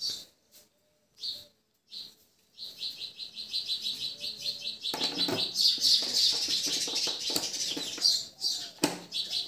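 Small birds chirping, breaking into a fast chattering run about three seconds in. From about halfway there is also the rustle and clicking of a screwdriver turning a screw in a plastic motorcycle windshield visor, with one sharp click near the end.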